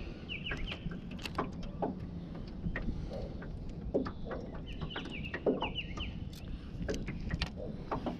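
A bird calling in two runs of quick falling chirps, one at the start and one about five seconds in, over scattered small clicks and knocks and a low steady rumble.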